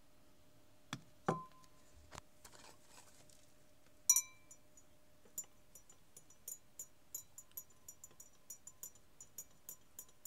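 A metal spoon clinking in a glass tumbler: a few knocks, then one loud ringing clink about four seconds in, then steady light ticking, about three to four taps a second, as iron vitriol (ferrous sulfate) is stirred into the gold-bearing aqua regia solution to precipitate the gold.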